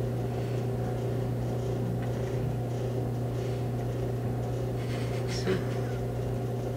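Steady low hum of a room's background machinery, with a faint click about five and a half seconds in.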